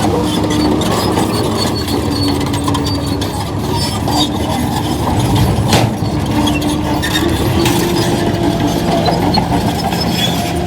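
Bulldozer's diesel engine running steadily under load, its pitch shifting now and then, with scattered metallic clinks and knocks from the machine and one sharp knock just under six seconds in.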